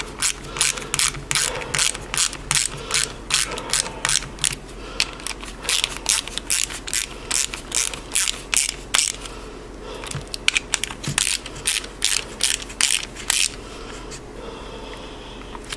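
Small ratchet clicking in a steady rhythm, about three clicks a second, as it drives in the 7 mm screws of a Briggs & Stratton plastic carburetor's bowl cover. The clicks thin out about nine seconds in and stop a couple of seconds before the end.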